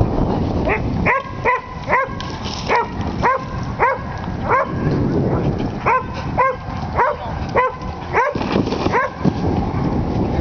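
A dog barking repeatedly in short, high barks, about two a second, with a brief pause midway.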